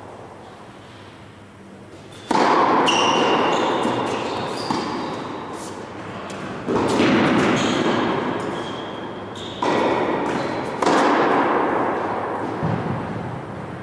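Tennis ball struck hard with rackets: four sharp hits, the last two about a second apart, each ringing on in a long echo through a large indoor tennis hall.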